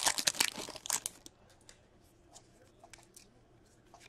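A hockey card pack's foil wrapper crinkling and tearing as it is opened, in a quick run of rustles over the first second or so, then a few faint clicks as cards are handled.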